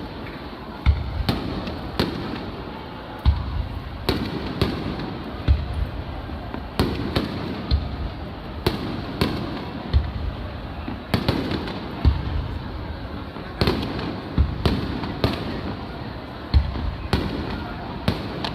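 Aerial fireworks shells bursting over the river: a deep boom every second or two, each with an echoing tail, mixed with lighter pops and crackles.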